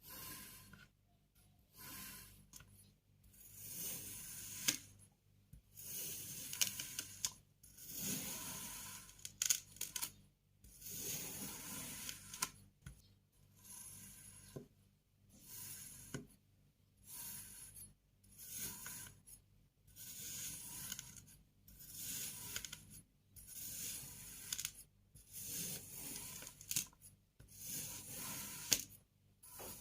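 Kinetic sand being cut with a knife in repeated strokes, each a second or two of gritty crunching with short pauses between, and a few sharp clicks.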